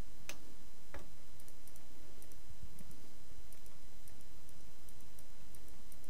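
Two sharp computer mouse clicks in the first second, then faint, irregular high-pitched ticking over a steady background hiss.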